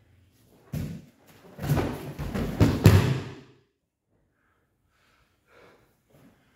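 A judo throw and breakfall on judo mats. There is a sharp thud about a second in, then a flurry of thumps and rustling judogi cloth, with the loudest slam near three seconds as the thrown judoka lands and slaps the mat. After that it is nearly quiet.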